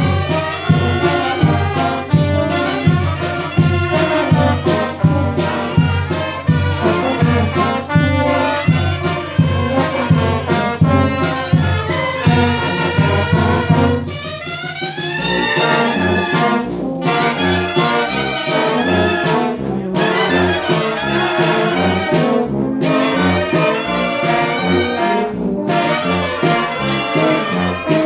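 Mexican wind band (banda de viento) of clarinets, trumpets, trombones and saxophones playing a tune together over a steady low beat. About halfway through the music shifts, with a rising run and a lighter bass line afterwards.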